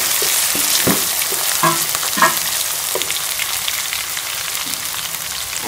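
Chopped onions and ginger-garlic paste sizzling in hot ghee in a karahi, with a wooden spatula scraping and stirring them against the pan several times in the first three seconds.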